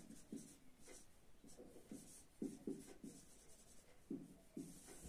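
Marker pen writing on a whiteboard: faint, short, irregular strokes of the pen tip across the board as words are written.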